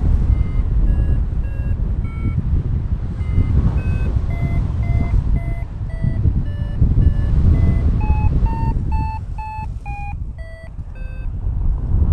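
Paragliding variometer beeping about twice a second in short tones whose pitch steps up and down. From about eight seconds in the beeps come higher and a little quicker, which on a vario signals a stronger climb. Loud wind noise on the microphone runs underneath and is the loudest sound.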